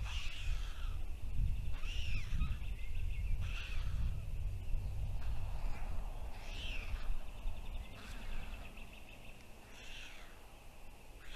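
A bird calling outdoors in short repeated calls, one every one and a half to three seconds, over a low wind rumble on the microphone that dies away about halfway through.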